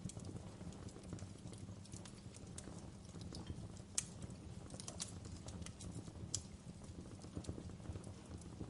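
Wood fire crackling in a fireplace: a steady low rumble of burning logs with scattered sharp pops and snaps at irregular moments, the sharpest about four seconds in.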